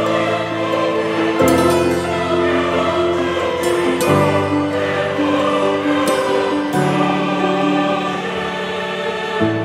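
Slow background music of long held chords. The chords change every two to three seconds.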